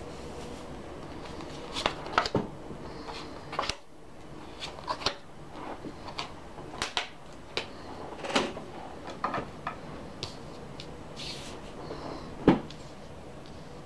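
Tarot cards being handled and laid down on a cloth-covered table: a scatter of light taps, clicks and card slaps, with one sharper knock near the end.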